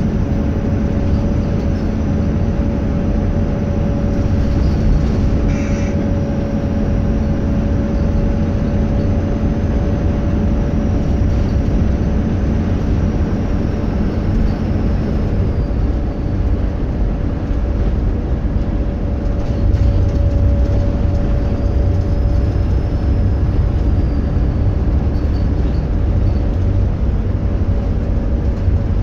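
Diesel bus engine running under way, a steady deep drone with a faint high turbocharger whistle that rises and falls slowly a few times.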